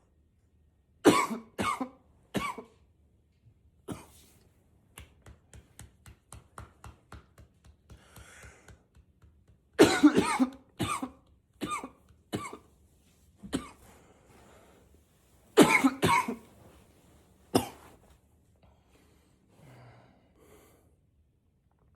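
A man coughing in repeated hard bouts, muffled by coughing into a pillow, as part of an unstoppable coughing fit. The coughs come in clusters of several sharp coughs, with a run of soft, evenly spaced short sounds between the first bouts.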